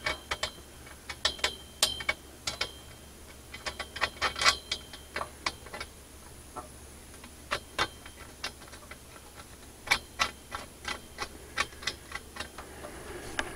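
Irregular small metal clicks and ticks, coming in clusters with short pauses, as a nut is run onto a bolt by hand in a metal purlin hanger clamped on galvanized greenhouse tubing.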